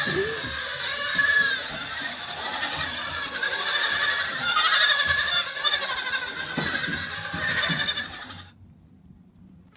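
Goat bleating in a run of wavering, overlapping calls. They cut off suddenly more than a second before the end, leaving only faint background.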